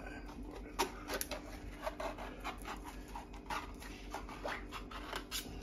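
Hand-held can opener being cranked around the lid of a tin can, a run of short clicks at about three or four a second.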